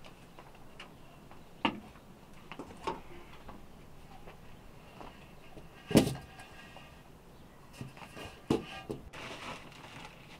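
Scattered knocks and clunks of stainless steel bowls being handled and set down on an earthen floor, the loudest a single thump about six seconds in.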